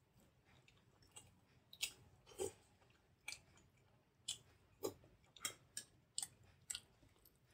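Close-miked wet chewing and lip-smacking of a mouthful of soft idli soaked in coconut chutney and sambar: about a dozen irregular sharp smacks and clicks, starting about two seconds in.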